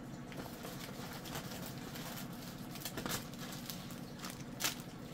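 Plastic sequin packets being handled and set down on a wooden tabletop: faint crinkling and scattered light taps, the sharpest about three and four and a half seconds in, over a low steady hum.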